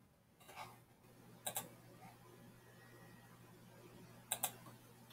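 Computer mouse clicks: two quick double clicks, the second about three seconds after the first, over a faint steady hum.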